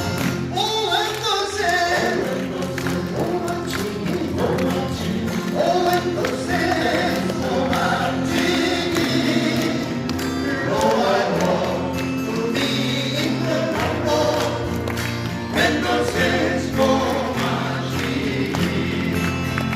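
Male vocal quartet singing in close harmony to acoustic guitar accompaniment, an upbeat folk-gospel song performed live.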